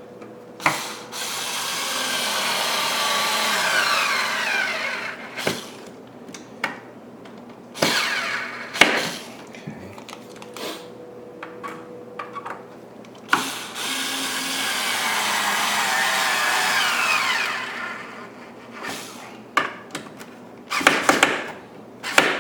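Power drill driving screws into a pine chair: two long runs of several seconds each, the motor's pitch falling as each screw draws tight. Short clicks and knocks of handling come between the runs and near the end.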